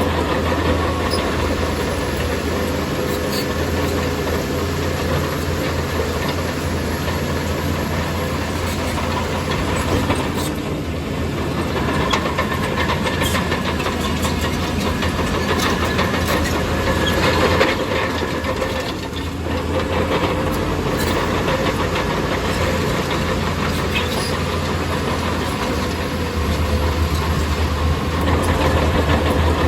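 Bulldozer's diesel engine running steadily under work, with scattered metallic clanks and rattles from the crawler tracks. It grows louder near the end.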